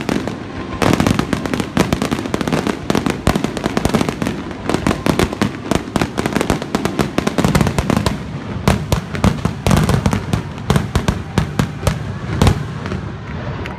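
Aerial firework shells bursting in a rapid, continuous barrage of bangs, many overlapping, with one sharper bang standing out near the end.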